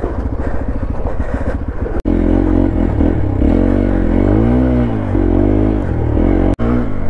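Hero Xpulse 200 4V motorcycle's single-cylinder engine running at low revs with a fast, even beat, then, after a momentary break about two seconds in, revving up and easing off several times as the bike is ridden.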